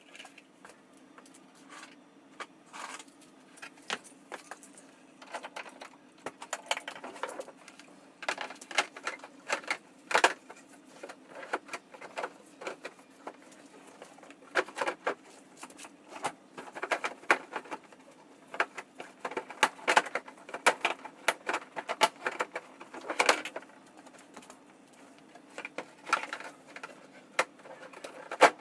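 Irregular light clinks and clatter of small hard objects being handled, in scattered clusters, over a faint steady hum.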